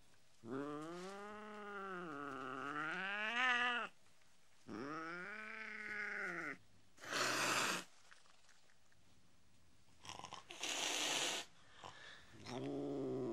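Domestic cat sound effects: a long, drawn-out meow whose pitch dips and rises twice, then a shorter second meow, followed by two short hisses. A low, steady rumble starts near the end.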